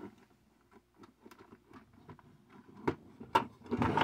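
Small hard-plastic toy pieces being handled and pushed together: faint scattered clicks and taps, with a couple of sharper clicks about three seconds in.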